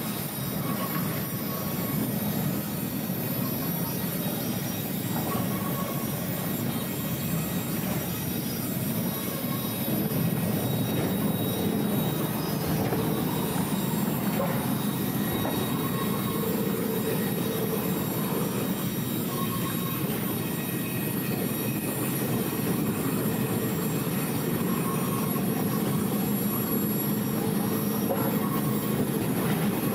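Heavy machinery running steadily, a dense mechanical noise with faint tones that come and go.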